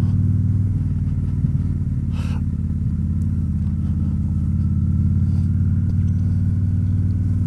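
V-twin cruiser motorcycle engine running steadily at low speed while the bike rolls slowly along a paved lane.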